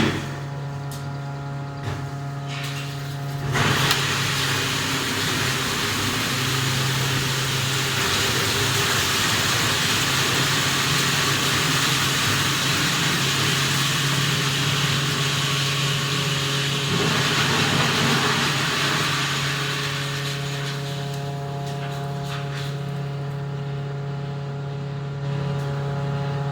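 Electric ice-block crusher with a built-in fan running: a steady motor hum, with loud, rough grinding of ice starting a few seconds in and easing off about three-quarters of the way through, back to the machine running empty.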